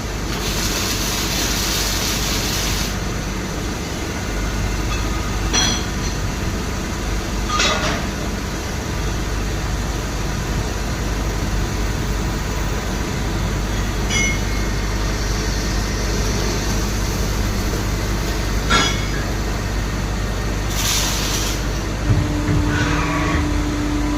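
CNC lathe running in a machine shop while turning a steel part: a steady low machine hum with a few sharp metallic clicks and two bursts of hiss. A steady tone starts near the end.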